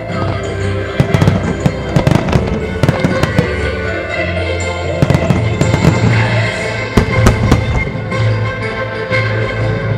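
Aerial firework shells bursting in a rapid series of sharp bangs over accompanying music, the loudest reports about seven seconds in.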